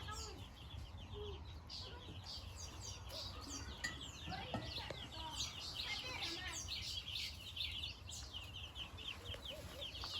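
A coop full of chicks peeping nonstop: many short, high, falling cheeps overlapping one another.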